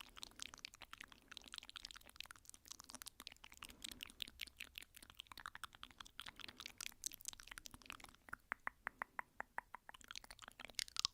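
Soft, rapid ASMR tapping: a dense run of quick, light clicks. About eight seconds in it settles into an even train of clicks, roughly eight a second.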